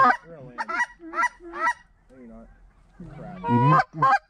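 Canada geese honking: a quick run of short, loud honks, fainter and lower calls in the middle, then another burst of loud honks near the end.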